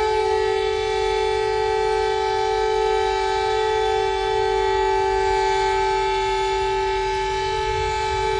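Civil-defence-style alarm siren of a mock emergency alert, holding one steady pitch over a low rumble.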